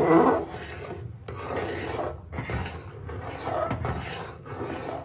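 Metal ladle scraping and stirring around the bottom and sides of a metal pot of milk and makhana, in repeated strokes about once a second, the first the loudest.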